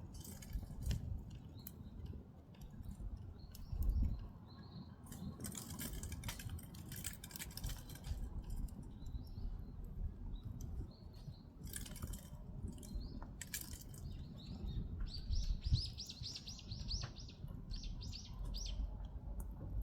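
Split firewood burning in a Korean agungi firebox: irregular crackles and pops over a steady low rumble of the fire. About fifteen seconds in, a bird gives a rapid high chirping trill for a couple of seconds, then a shorter one.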